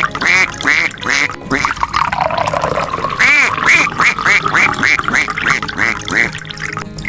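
Background music with a lead of short, rising-and-falling chirpy notes repeated about four times a second, and one long falling glide about two seconds in.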